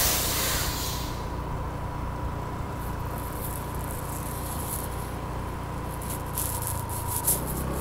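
Steady low rumble of a moving road vehicle, heard from on board. A hiss passes in about the first second, and crackly buffeting comes and goes through the second half.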